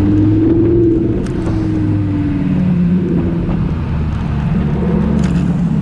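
Lamborghini supercar engine running at low speed just ahead, a deep drone whose pitch rises a little and falls back over the first couple of seconds, then holds steady.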